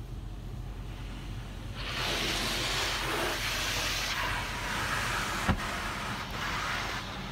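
High-pressure spray from a touchless car wash gantry hitting the car body and windows, heard from inside the car: a loud, even hiss that builds about two seconds in and eases off about six seconds in, over a steady low hum. The lit stage is clear coat protectant. A single sharp click comes near the end of the spray.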